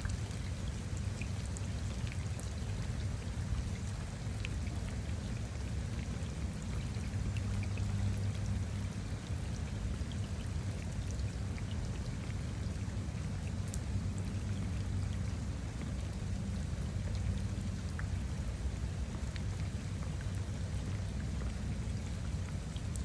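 Steady rain falling onto puddles of standing floodwater: an even low rush of water with scattered individual drop ticks on top.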